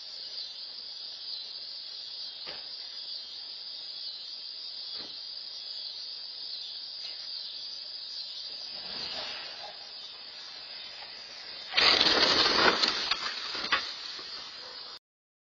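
A steady high hiss, then about twelve seconds in a loud rush of noise lasting about two seconds as an SUV drives into the shrubs right in front of the camera, ending with a sharp knock.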